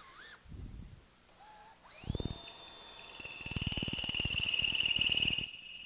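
Cordless drill boring into mahogany with a long half-inch bit through a clamped wooden drill guide, with a high-pitched squeal. It runs in a short burst, a brief burst near two seconds, then a longer steady run that stops shortly before the end.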